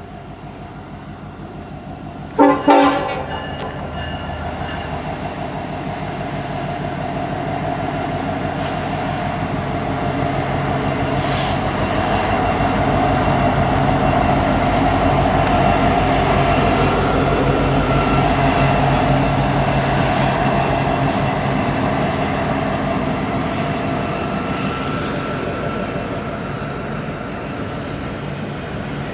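A short horn blast from a Union Pacific diesel locomotive about two seconds in. The locomotive's engine then grows louder as it passes, followed by the steady rolling noise of double-stack container cars going by, which slowly fades.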